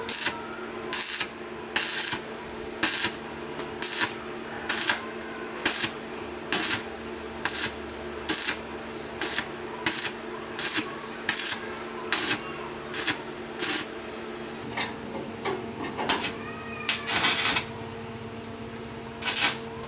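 Rhythmic scraping strokes, about one a second, like hand work on a part during restoration, over a steady hum. A cat meows briefly about 16 s in and again near the end.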